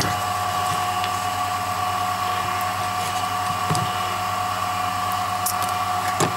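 Vacuum pump running steadily, a constant hum with a steady whine over it, pumping down a jam-jar vacuum chamber. A few light clicks of handling about halfway through and near the end.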